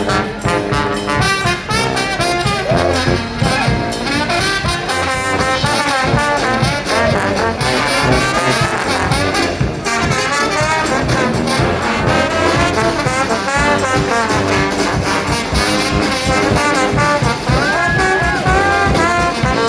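Brass street band playing an upbeat tune, trombones and trumpets carrying the melody over a steady beat.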